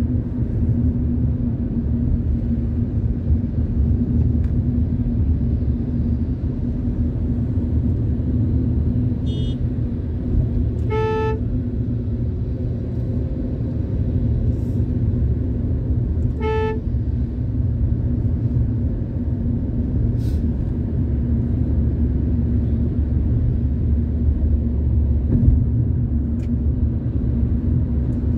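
Steady low engine and road rumble heard inside a moving car's cabin. A vehicle horn gives two short toots about five seconds apart partway through, with a fainter, higher beep just before the first.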